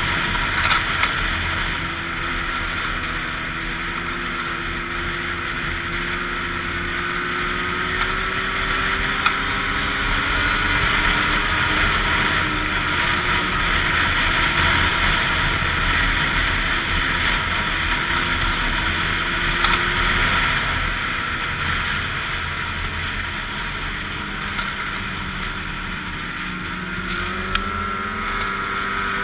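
Snowmobile engine running under way at trail speed, its pitch rising and falling with the throttle and climbing near the end, with wind noise on the microphone.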